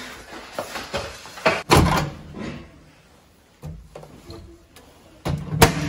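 Microwave oven door being handled: a series of clicks and knocks from the door latch and door swinging open and shut, the loudest knocks about a second and a half in and just before the end.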